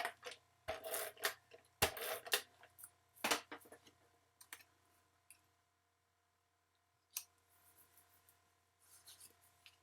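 Paper and card stock being handled on a crafting table: three short rustles in the first few seconds, then a few light taps and clicks.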